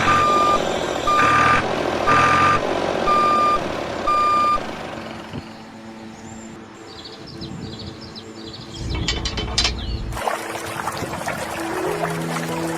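A vehicle reversing beeper sounding a steady single-tone beep about once a second, several times, then stopping about four and a half seconds in. Background music begins near the end.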